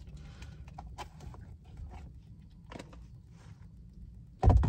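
Small clicks and crinkles of a plastic drinking straw being unwrapped and pushed through a plastic cup lid, then a loud thump near the end.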